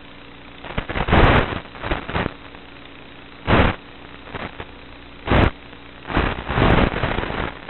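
Steady electrical hum with repeated short bursts of loud hissing static, the audio of an analog FPV video link recorded on the goggles' receiver.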